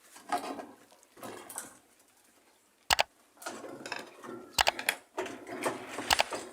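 Washing machine parts being handled during disassembly: irregular scraping and rubbing, with three sharp knocks, the loudest about halfway in, the others near the end.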